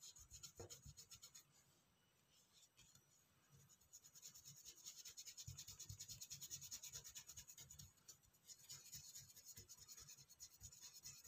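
Faint, quick scratching of a small paintbrush scrubbing paint into a cold porcelain leaf in short repeated strokes, sparse for the first few seconds and steadier from about four seconds in.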